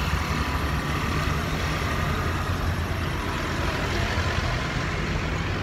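Street traffic noise: vehicle engines running with a steady low rumble.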